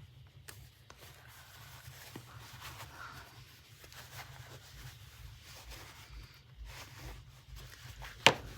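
Soft, uneven rustling and rubbing of fabric being handled, with faint ticks and one sharp click near the end.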